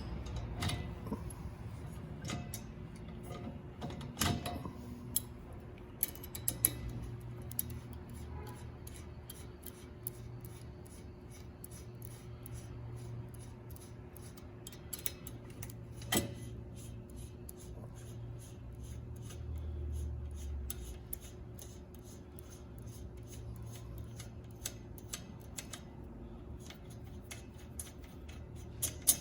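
Light metal clicks and taps of a 5mm Allen key working the top bolts that hold an oven's wishbone spine, coming in quick runs through most of the stretch, with a few louder metal knocks. A steady low hum sounds under it.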